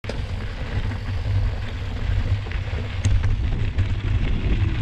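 Wind buffeting the microphone as a mountain bike rides fast down a gravel road: a loud, fluttering low rumble over the hiss and crunch of tyres on loose gravel, with a sharp click about three seconds in.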